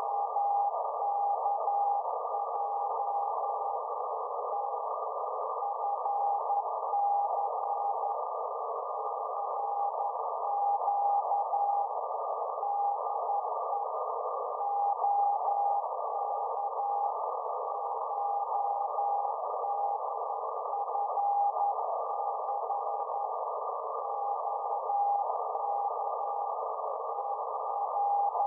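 432 MHz moonbounce (EME) signal from OK1DFC heard through a ham radio receiver: a single Morse code (CW) tone keyed on and off over steady receiver hiss confined to a narrow CW passband.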